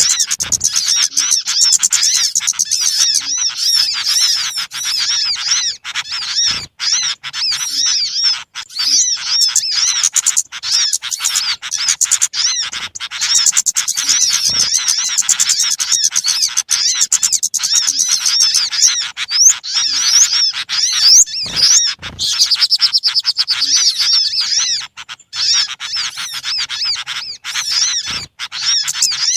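Many small birds chattering and chirping noisily at once, a dense, unbroken mass of rapid high calls and trills: a bird-lure recording made to draw small birds in.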